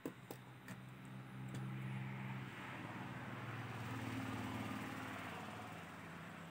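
A few light clicks and knocks in the first second and a half as a circuit board is handled and turned over, over a steady low engine-like hum.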